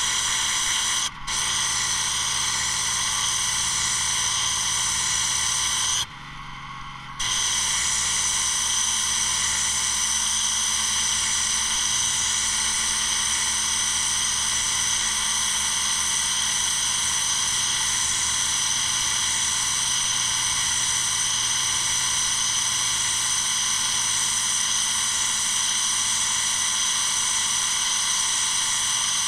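Petrol-engined pressure washer (Honda GX390 driving a 15 lpm Interpump) with a turbo nozzle blasting block paving: a steady loud spray hiss over the running engine. The jet cuts out for a moment about a second in and for about a second around six seconds in, leaving only the lower engine sound.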